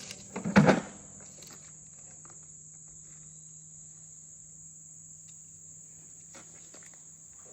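Steady high-pitched chirring of crickets, with a short cluster of loud knocks and clatter about half a second in.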